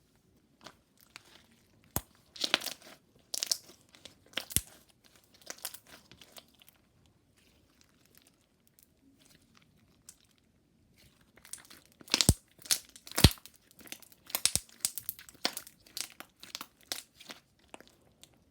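Water slime being squeezed and pressed by hand, making sharp popping and crackling clicks in two busy stretches with a few quieter seconds between them.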